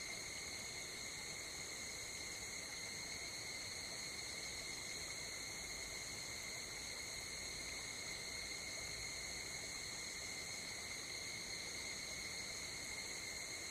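Steady chorus of night insects trilling continuously, a faint unbroken high-pitched shrill over soft outdoor background noise.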